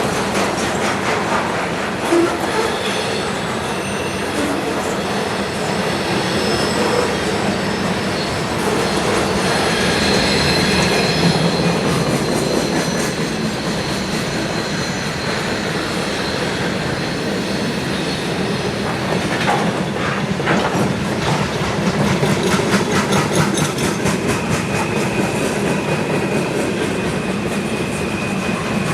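Freight train cars rolling past at speed: a steady rumble with the clickety-clack of wheels over rail joints. Thin wheel squeals come in about ten seconds in, and again from about three-quarters of the way through.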